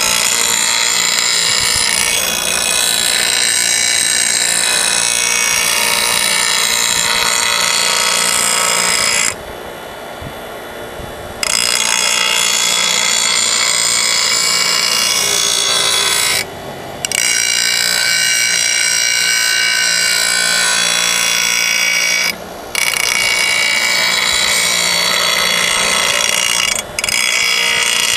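Steel lawn mower blade held at an angle against a running 6-inch bench grinder wheel, a loud, harsh grinding hiss as the cutting edge is sharpened. The blade is lifted off for about two seconds around nine seconds in and briefly three more times later, leaving only the grinder motor's hum.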